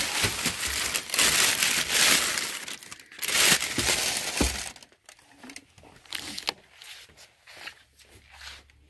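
Clear plastic bag crinkling and rustling loudly as a polystyrene-foam packed box is pulled out of it, with a knock about halfway through, then quieter scattered handling sounds.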